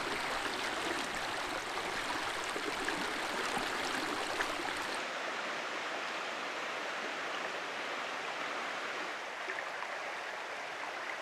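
A shallow trout brook runs over rocks in a riffle with a steady rush of water. About five seconds in, the sound turns a little duller, with less hiss at the top.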